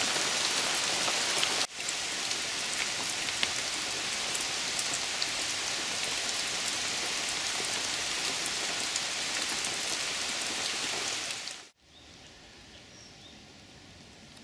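Steady rain falling on a surface, with individual drops ticking through it. About twelve seconds in it cuts off suddenly to a much quieter background with a few faint high chirps.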